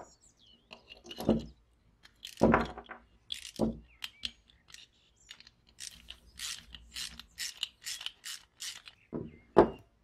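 A nut driver turns a nut on a metal lighter case. First come a few knocks of the case against a wooden bench, then a run of about ten short clicking strokes, about three a second, then two more knocks near the end.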